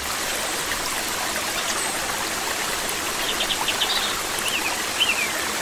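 Steady rush of flowing water, like a stream, with a few short high chirps over it from about three seconds in.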